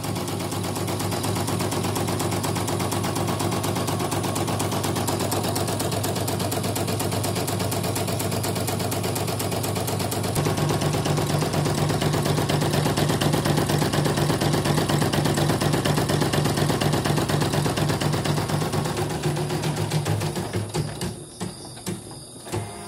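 CNY portable computerized embroidery machine stitching a test pattern with a fast, even rattle, running smoothly after repair of a stiff, heavy drive and a total power failure. About ten seconds in the stitching gets louder. Near the end it stops, with a few clicks.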